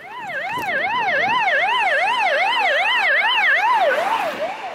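Emergency vehicle siren in a fast rising-and-falling yelp, about three sweeps a second. It is loud, then drops slightly in pitch and fades near the end as the vehicle passes.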